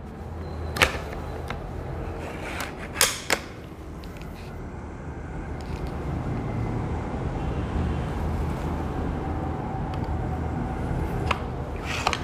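Sharp metallic clicks from the action of a Snow Peak B3-3 underlever air rifle as it is handled: one about a second in and two close together around three seconds. A low handling rumble runs underneath, and more clicks come near the end as the underlever is pulled down to cock the rifle.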